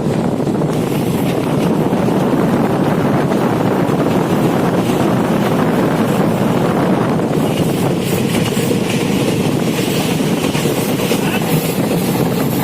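Passenger train running at speed: a loud, steady rumble of the coaches on the rails, mixed with wind noise on the microphone.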